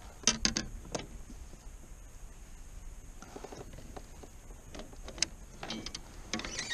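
A few knocks and rattles of fishing gear being handled in a plastic kayak, the loudest just after the start, with scattered softer clicks later.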